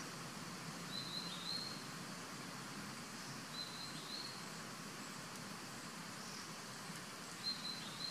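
A bird's short, high two-note call, repeated three times about three seconds apart, over a steady outdoor hiss and low hum.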